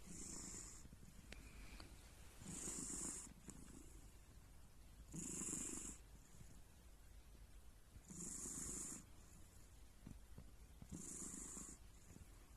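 A sleeping cat snoring faintly: five rasping snores, each under a second long, coming regularly about every three seconds.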